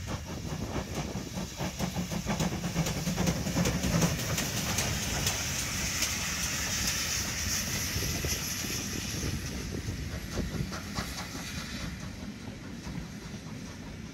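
Steam tank locomotive hauling passenger coaches as it passes close by: exhaust beats and hissing steam, the hiss loudest as the engine goes past about halfway through. As the coaches follow, their wheels clatter over the rail joints.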